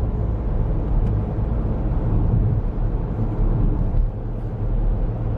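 Steady low engine and road noise heard from inside a moving car's cabin.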